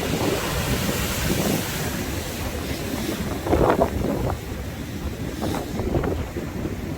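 Sea waves washing and breaking on the shore in strong wind, with wind buffeting the microphone in gusts, the strongest about three and a half seconds in.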